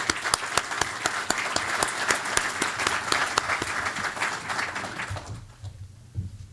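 An audience applauding, many hands clapping together, dying away about five seconds in.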